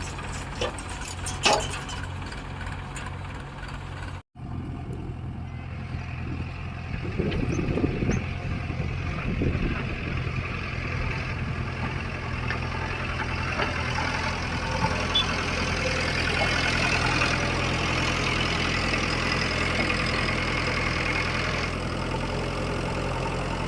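Diesel engines of a backhoe loader and tractors running steadily, with a sharp knock about a second and a half in and a brief cut in the sound about four seconds in.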